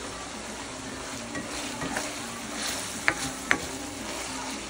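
Ground beef with green pepper and onion sizzling steadily in a frying pan while it is stirred with a spatula. Two sharp knocks of the spatula against the pan come about three seconds in.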